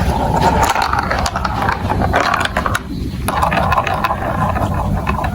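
Marbles rolling and clattering down a plastic building-block marble run: a continuous rolling rumble with many small clicks.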